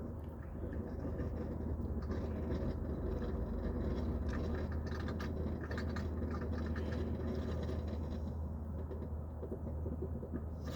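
Electric coffee pot brewing near the end of its cycle, gurgling and sputtering most busily in the middle, over a steady low hum.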